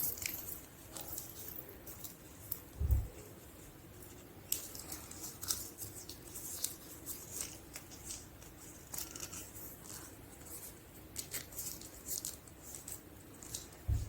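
Irregular light clicks and ticks of a plastic watch being handled, with two dull thumps, one about three seconds in and one near the end.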